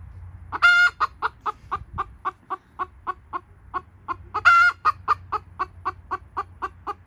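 Silkie chicken cackling: a loud drawn-out squawk about half a second in and again about four and a half seconds in, with a run of short, even clucks at about four a second between and after them.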